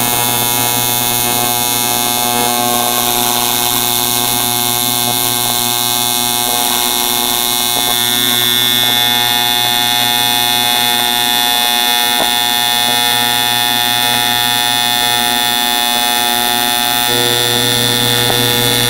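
AC TIG welding arc on aluminum from an AHP AlphaTIG 200X set at 75 amps with a 120 Hz AC frequency: a steady, even buzz. Its lower tones grow a little louder near the end.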